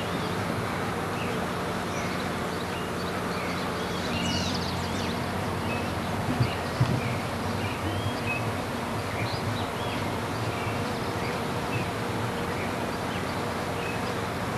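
Steady outdoor background hiss with scattered short, high chirps throughout, and two brief knocks a little past the middle.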